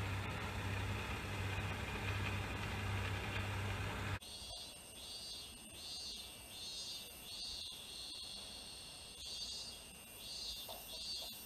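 A diesel railcar idling with a steady low drone, cut off about four seconds in. After that, insects chirp in an even rhythm of about one and a half pulses a second over a steady high whine.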